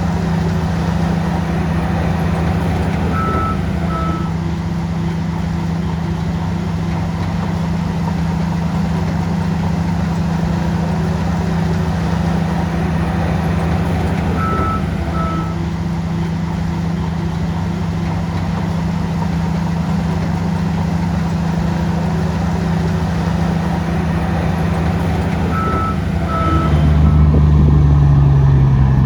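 Heavy diesel engine of a Shantui bulldozer running steadily under load. Three times, roughly every eleven seconds, a warning alarm gives two short high beeps. Near the end the engine note shifts and grows louder as it revs.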